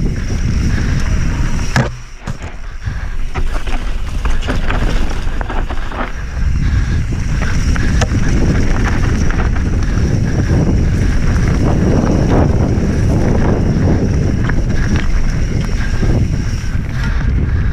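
Electric mountain bike rolling fast down a dirt and stony singletrack: wind rumbling on the microphone, tyres crunching over gravel, and the bike rattling and knocking over bumps. The noise drops briefly about two seconds in.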